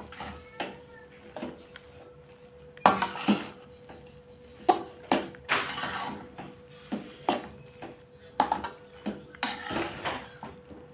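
Metal spatula knocking and scraping against a wok while stirring a panful of egg noodles: irregular clanks and scrapes, some in quick pairs.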